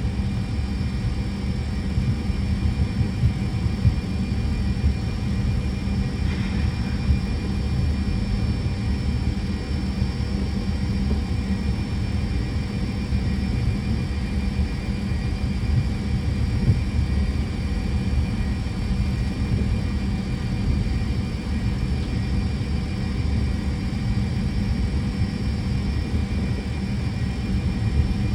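Fokker 100's twin Rolls-Royce Tay turbofans running at takeoff power, heard inside the cockpit as a steady low rumble with faint constant whine tones above it.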